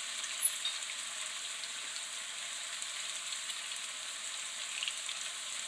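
Diced onion frying in sesame oil in a pan over medium heat: a steady sizzle, with one small click about half a second in.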